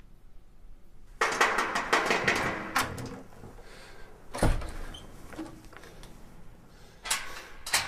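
Rapid sharp knocking and rattling at a door for about two seconds, a single heavy thump midway, then two more sharp knocks near the end.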